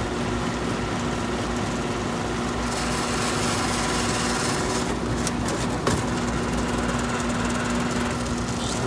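Bryant air-conditioner condensing unit running steadily, its newly replaced condenser fan motor spinning the fan and its Bristol reciprocating compressor humming; a noisy unit. A few brief ticks about five and six seconds in.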